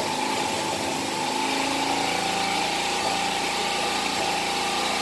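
A motor running steadily, a constant hum and whine that does not change, over an even hiss.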